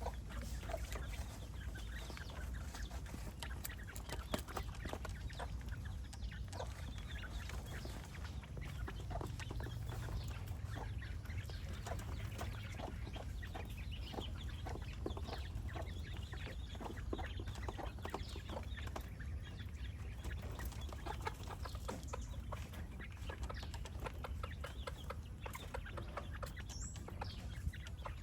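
Chickens clucking, with many short clicks and taps and a steady low rumble underneath.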